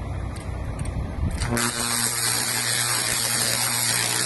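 Electric arc drawn on a live overhead power line as a connection is pulled apart with a hot stick: it strikes suddenly about a second and a half in and keeps going as a loud, steady buzzing hiss with a low hum under it.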